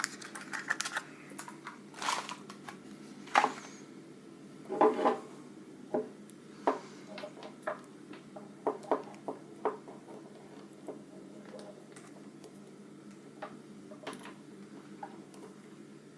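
Plastic parts and packaging being handled, making scattered clicks and light knocks, with a few louder knocks in the first five seconds.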